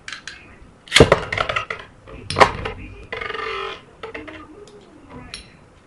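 Metal Beyblade spinning tops (Aries and Wolf) clattering and clashing against each other and the plastic stadium: a loud burst of rapid clicks about a second in, another sharp hit midway, then lighter scattered clinks as they spin on.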